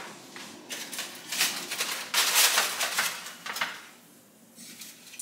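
Aluminium foil crinkling and rustling as it is lifted from and tucked back over disposable foil pans, in irregular bursts that die down near the end.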